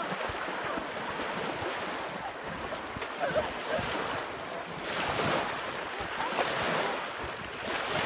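Strong wind buffeting the microphone over choppy waves breaking on a lake beach, with splashing as people run through the shallows.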